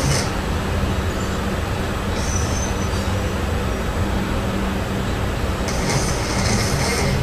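Sleeping cat snoring: a steady low rumble, with a breathy hiss for about a second near the end.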